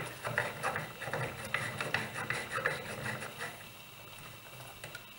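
Dewpoint sensor being screwed by hand into its metal housing: fingers gripping and turning the metal sensor body, with a run of small clicks and rubbing scrapes that dies away after about three and a half seconds.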